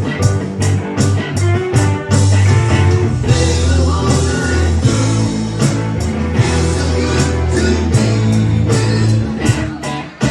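Band playing a country-rock song: guitars and bass guitar over drums keeping a steady beat.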